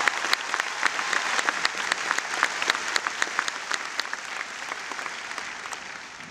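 Audience applauding in a large hall, with many individual claps audible, the applause gradually dying down.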